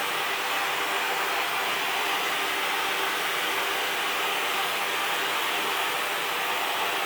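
Steady hiss of a gas heating flame bringing steel truck-axle pieces up to a cherry-red heat for annealing.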